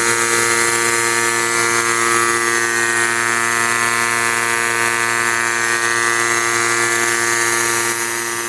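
Allegro 9832 rotary vane breathing-air compressor, driven by its 1.5 horsepower electric motor, running steadily: an even whir made of several steady tones over a hiss, a little quieter near the end.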